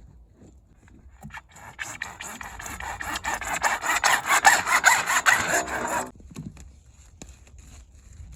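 Gravel being scraped and moved, a gritty crunching rush of small stones with many little clicks, building up over a few seconds and stopping suddenly.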